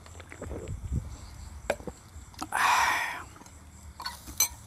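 Scattered clicks and light knocks of tongs and utensils at a small charcoal grill, with one short, loud rush of noise about two and a half seconds in.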